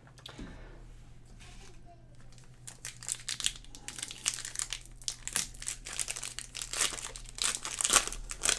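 Trading card pack's foil wrapper crinkling and being torn open by hand: a dense run of sharp crackles from about two and a half seconds in, loudest near the end.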